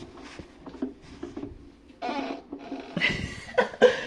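Washing machine's rubber door seal making short, irregular rubbing and squeaking noises, busier in the second half.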